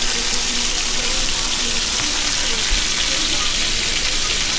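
Battered tautog fish frying in hot oil in a cast-iron skillet: a steady, dense sizzle and crackle of the oil.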